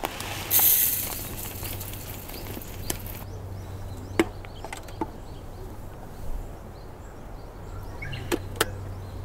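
Something poured into a mini rice cooker's inner pot for about three seconds, then a few light clicks and knocks as the pot and cooker are handled, over a low steady hum.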